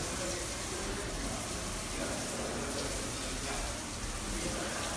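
Water from a rain fountain falling and splashing in a steady, even rush.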